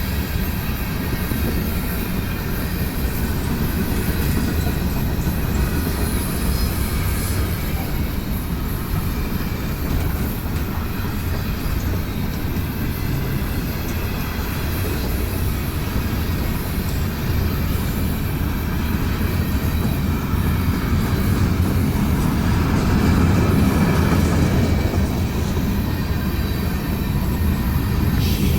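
Train passing: a steady, loud, low rumble of rolling stock on the rails that grows a little louder near the end.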